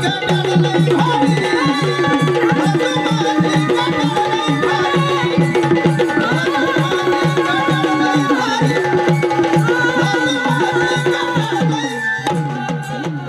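Live Marathi folk gavlan performance: a fast hand-drum rhythm under a held, stepping melody, with a woman singing into a microphone.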